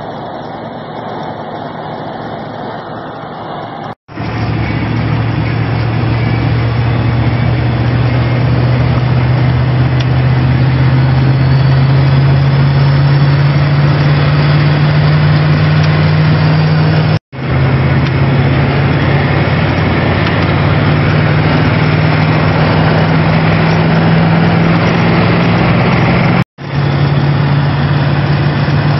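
Turbocharged 7.3 IDI V8 diesel pulling under load, heard from inside the cab, with the turbo whistling. The engine drone climbs slowly in pitch as the truck accelerates, and the sound breaks off sharply three times where clips are spliced.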